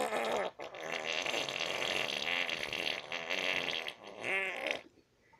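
A long fart sound lasting about four seconds, then a shorter second one, ending abruptly about five seconds in.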